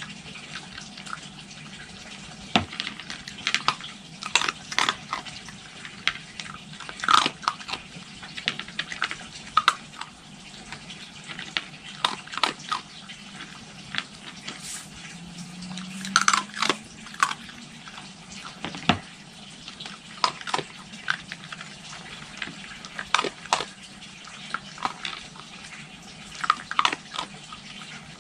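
Red fox cub chewing dry food pellets: irregular sharp crunches, often several in quick succession, over a faint steady hiss.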